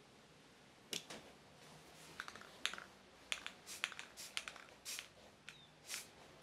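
Irregular clicks and short scraping ticks from a hand screwdriver driving a screw into a wooden frame.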